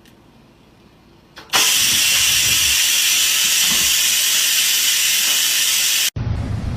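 A loud, steady hiss that starts suddenly about a second and a half in and cuts off abruptly near the end.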